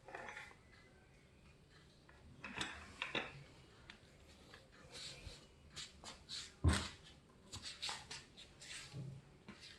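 Parts and packaging of a pull-up bar being handled: irregular clicks, light knocks and rustling, with one heavier thump about two-thirds of the way in.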